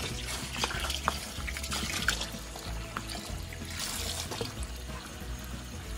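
Water splashing and trickling in a sink holding freshly caught catfish, with a few sharp knocks, over background music.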